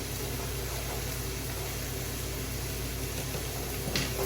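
Steady low hum with an even hiss, with a short click near the end.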